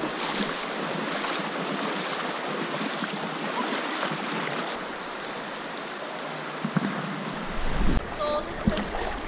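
Steady rush and slosh of water as people wade knee-deep up the Virgin River, the current splashing around their legs.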